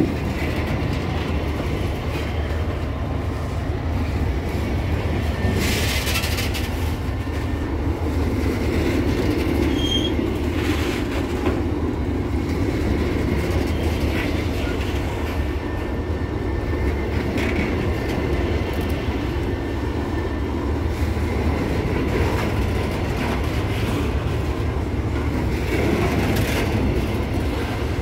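Loaded freight hopper wagons rolling past on the rails: a steady rumble of steel wheels on track, with a few brief high-pitched wheel squeals and screeches, the sharpest about six seconds in.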